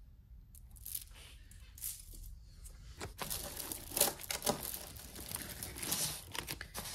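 Clear plastic bag crinkling and rustling as a hand rummages through loose jewelry, with small sharp clicks of glass beads; faint at first, it becomes steady and busier about three seconds in.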